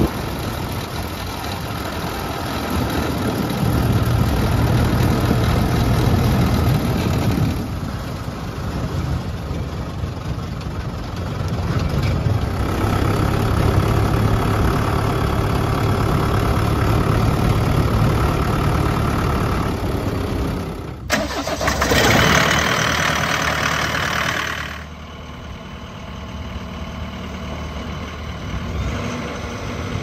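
Swaraj tractor's diesel engine running under the driver's seat as the tractor drives, getting louder and softer with the throttle. About 21 s in, a sudden break is followed by a few seconds of loud rushing noise, and then a quieter engine idling steadily.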